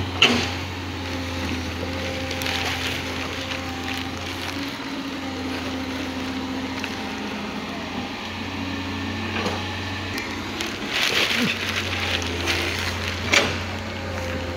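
Excavator's diesel engine running steadily, with a few sharp knocks and a scraping clatter of rock and gravel, the loudest knock about a quarter second in and another near the end.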